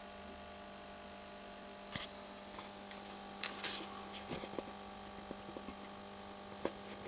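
Steady electrical hum of a homemade solar MPPT charge controller running while it charges the battery, several steady tones with the deepest the strongest. A few brief knocks and rustles come about two seconds in, around three and a half seconds, and near the end.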